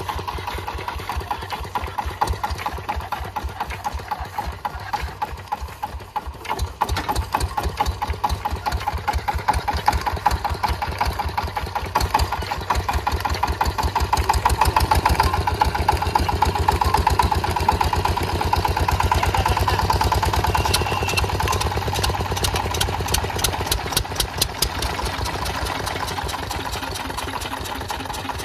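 Fieldmarshal Lister single-cylinder diesel engine running after a belt start, a fast steady chugging beat. It grows louder about halfway through, then eases slightly near the end.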